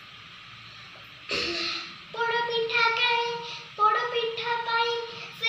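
A young girl singing unaccompanied, holding long, steady notes from about two seconds in, after a short breathy sound.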